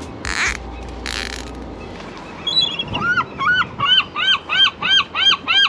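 Two short rustling noises near the start, then a gull calling a rapid series of loud, arching squawks, about three a second, from about two and a half seconds in.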